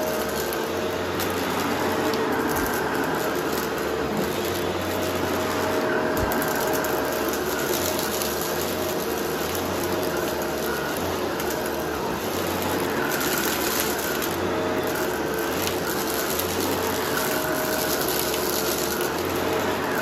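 Bissell vacuum cleaner running over a rug with its brushroll: a steady rushing noise with a motor hum whose tones come and go every few seconds.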